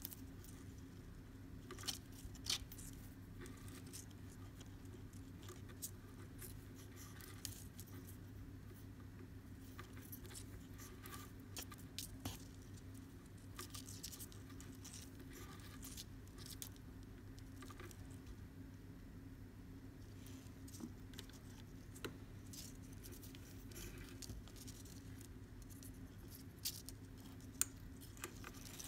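Macramé cord being handled and pulled tight as clove-hitch knots are tied by hand: faint scattered clicks and soft brushing over a steady low hum.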